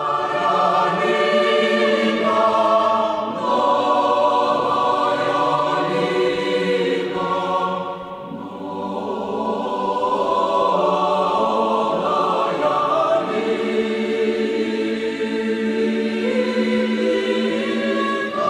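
A choir singing slow, sustained chords, held notes shifting every second or so, with a brief softer moment about eight seconds in.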